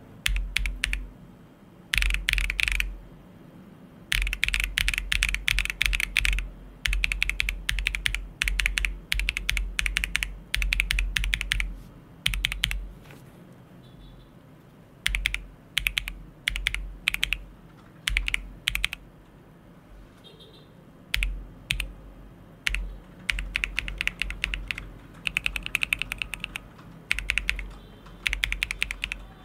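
Typing on a MonsGeek M1W mechanical keyboard fitted with the third of the keycap sets being compared: quick runs of key clicks in bursts, with short pauses between, as a sound test of that keycap set.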